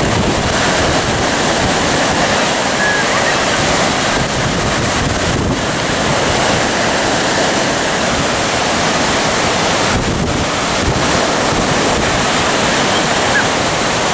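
Strong surf in 3 to 4 foot seas breaking and washing around a grounded seaplane, with high wind buffeting the microphone; a steady, dense rush of water and wind noise.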